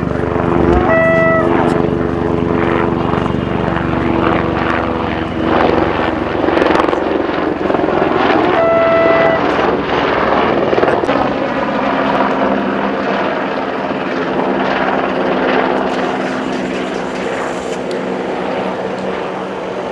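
Light helicopter flying past and overhead, a steady rotor and engine noise that swells in the middle and eases off toward the end. A short high tone sounds twice, about a second in and again about nine seconds in.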